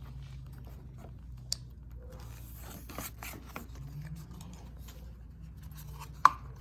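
Hands handling small parts or tools: scattered rubbing and scraping with light clicks, and one sharp, loud click about six seconds in.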